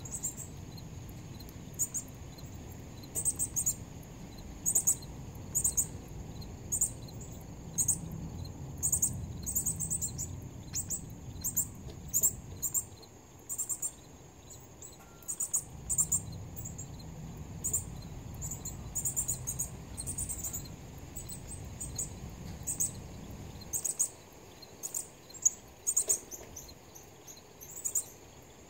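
Northern cardinals giving short, sharp, very high chip calls, repeated irregularly about once a second, over a steady high-pitched insect trill.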